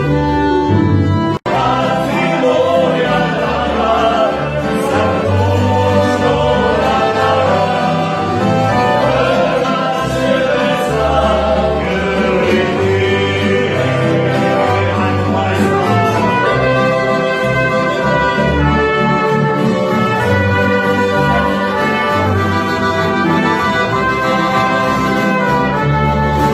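Live tamburica band playing: plucked tamburicas, accordion, upright bass and trumpet together in a lively dance tune. The sound cuts out for an instant about a second and a half in, then the music carries on.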